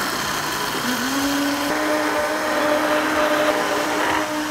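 White countertop electric blender running, blending banana, eggs, yogurt, oil and brown sugar into cake batter. Its motor hum rises slightly in pitch about a second in, then holds steady.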